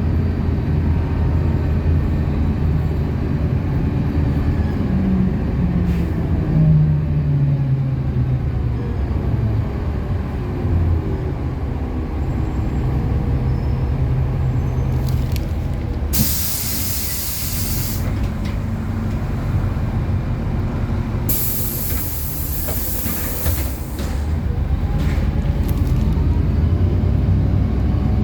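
City bus engine running as the bus slows and stops, then two long bursts of compressed-air hiss from the bus's pneumatics. The engine grows louder near the end as the bus pulls away.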